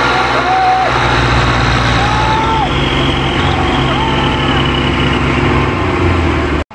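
Tractor diesel engine running hard and steady under heavy load, straining to drag a loaded sugarcane trolley out of mud, with men calling out over it a few times. The sound cuts off abruptly near the end.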